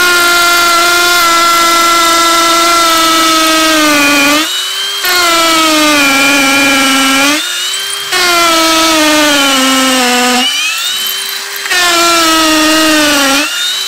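Ryobi P251 brushless hammer drill boring into a concrete block with a masonry bit: a loud, steady motor whine that sags in pitch as the bit bites. Three times the level drops briefly and the pitch climbs as the load eases, before the drill bears down again.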